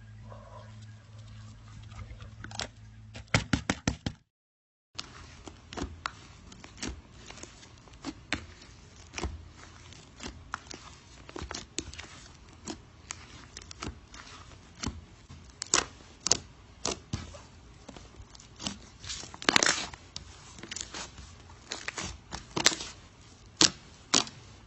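Irregular sharp clicks and crackles, a few to several a second, some much louder than others. The sound drops out completely for about half a second around four seconds in.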